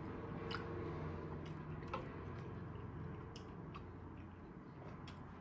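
Faint chewing and wet mouth clicks from eating buttered corn on the cob: a handful of soft, irregular clicks over a steady low hum.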